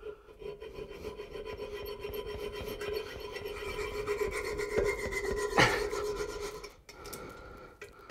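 Mini hacksaw cutting through a brass toilet closet bolt: rapid back-and-forth strokes of the blade rasping on the metal, with a steady ringing tone under them. A sharp click about five and a half seconds in, and the sawing stops about a second later.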